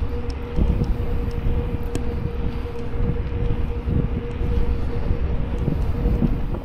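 Wind buffeting the microphone of a bicycle-mounted camera while riding on a paved road, a loud low rumble with scattered small knocks and a steady faint hum underneath.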